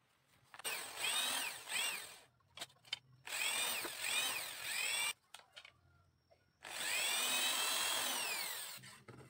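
Small electric hand drill with a thin bit boring holes through bamboo slats for reinforcing pegs: three runs, the motor whine rising and falling as the trigger is squeezed and eased. The last run is the longest and winds down near the end.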